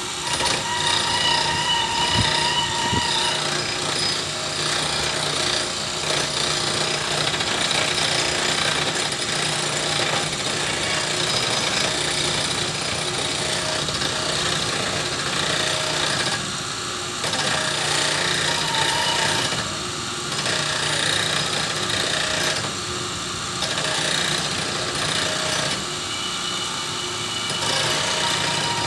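Homemade camshaft grinder: an electric motor drives an abrasive wheel that grinds a steel camshaft lobe, throwing sparks, while the camshaft is turned by hand. The grinding is steady, with brief dips about every three seconds in the second half.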